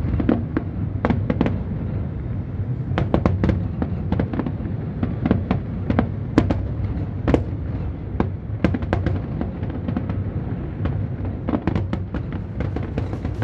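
Aerial fireworks display: an irregular string of sharp bangs and crackles, often two or more a second, over a steady low rumble.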